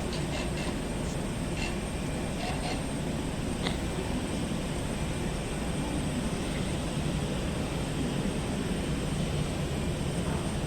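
Steady low rumble of jet aircraft noise at an airport apron, with no clear rise or fall.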